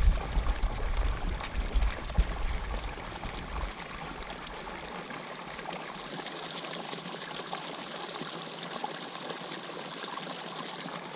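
Steady trickle and splash of water running into a pond, an even rushing hiss. A few low bumps and rumble in the first few seconds.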